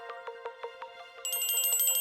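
Vivo V19 phone ringtone playing: quick mallet-like notes fade out over the first second, then a high, rapidly pulsing ring starts.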